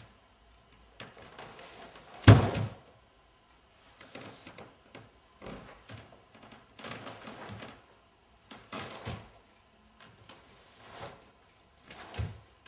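Barefoot karate kata: bare feet stepping and sliding on the dojo floor and the karate uniform swishing with each movement. A loud thud about two seconds in and another near the end come as a raised foot is brought down hard.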